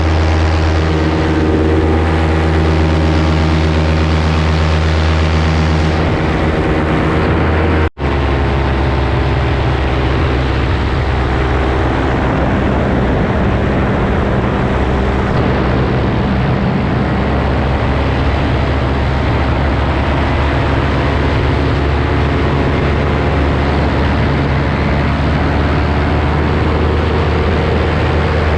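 Paramotor engine and propeller running steadily in flight. The sound drops out for an instant about eight seconds in, and the engine's tone is slightly different afterwards.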